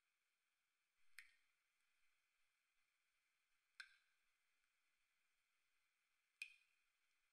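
Near silence broken by three faint, sharp drips about two and a half seconds apart, each with a short ringing tail: water dripping into a bathtub.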